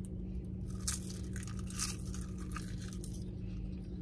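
Paper-thin, crisp roasted seaweed snack sheets being eaten: a run of sharp, crackly crunches, loudest about one and two seconds in.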